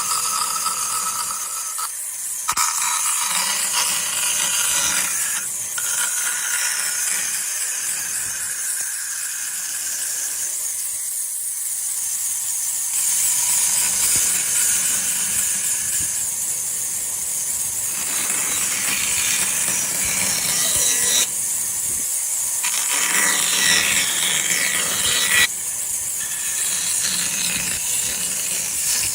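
Woodworking tools sawing and cutting wood, a scratchy, high-pitched mechanical noise that changes abruptly every few seconds.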